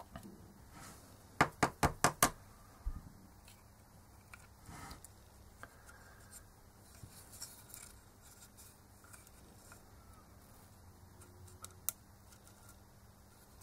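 Parts of a horn loudspeaker's compression driver being handled and fitted back together. A quick run of about five sharp clicks comes a couple of seconds in, then soft rubbing and handling noises and a single tick near the end.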